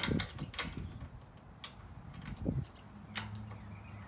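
Scattered sharp metallic clicks and clinks of a 9/16 socket and ratchet being handled and fitted onto the grille nuts, with a faint low steady hum starting about three seconds in.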